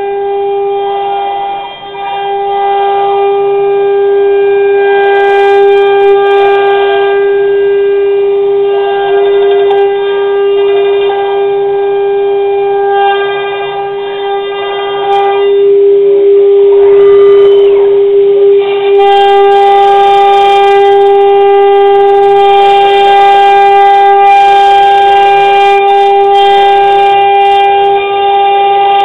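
CNC router spindle running with a steady high whine while cutting, a rougher cutting noise swelling and fading under it.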